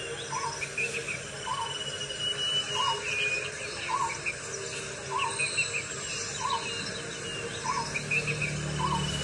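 Forest birds and insects: one bird repeats a short, even note about once a second, some nine times, over scattered higher chirps and a thin, steady insect-like whine.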